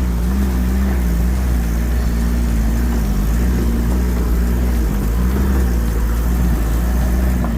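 Motor vehicle driving along, with a steady engine hum and road rumble that wavers slightly in pitch.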